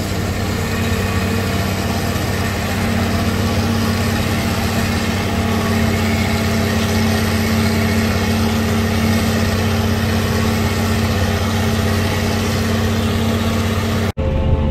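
CLAAS Jaguar self-propelled forage harvester running steadily under load as it cuts maize for silage and blows the chopped crop into a tractor-drawn trailer, its engine and chopper mixed with the tractor's engine. The sound cuts out for an instant near the end and gives way to a different steady engine hum.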